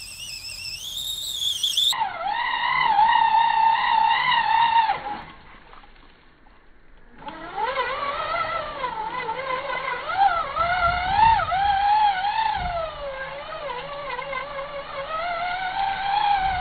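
Redcat Everest 10 RC crawler's electric motor and drivetrain whining, the pitch rising and falling with the throttle as it crawls through dirt. The whine fades out about five seconds in and picks up again about two seconds later.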